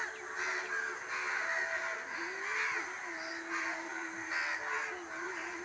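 A group of crows cawing, many harsh calls overlapping one another without pause, over a faint steady low hum.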